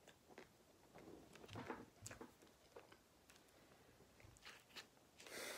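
Near silence with faint, scattered mouth clicks from quietly chewing a bite of chocolate-coated ice cream bar, and a brief louder rustle or hiss near the end.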